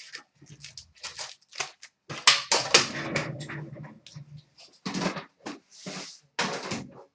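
Trading cards and foil pack wrappers being handled, heard as a run of short rustles and clicks, mixed with a few short low vocal sounds.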